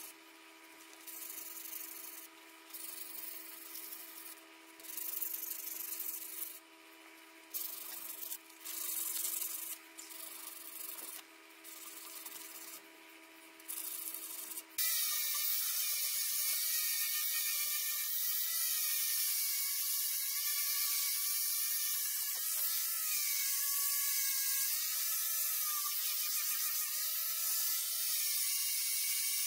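Wooden hammer handle sanded by hand in short, uneven strokes over a steady hum. About fifteen seconds in, an electric angle grinder with a sanding disc starts suddenly and runs on steadily against the wood, its whine wavering up and down in pitch as it is pressed on.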